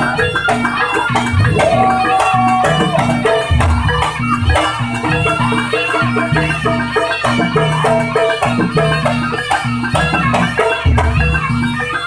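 Live jaranan gamelan accompaniment: kendang drums and gong-chimes keep a steady repeating beat under a held reed-horn melody.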